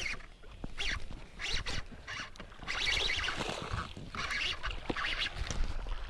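Hooked bass thrashing and splashing at the surface beside the boat while it is brought to the net, a series of irregular splashes with the longest run about three seconds in.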